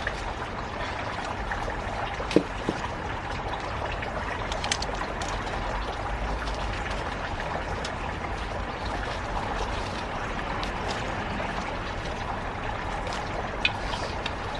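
Water running steadily in a trickle, with a light knock about two seconds in and another near the end.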